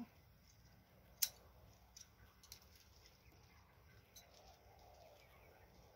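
Near quiet with a few faint, sharp snips as crown daisy (tần ô) stems are cut, the loudest about a second in.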